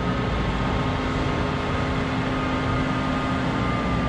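A machine running steadily: an even rushing noise with a low hum and a higher whine held level throughout.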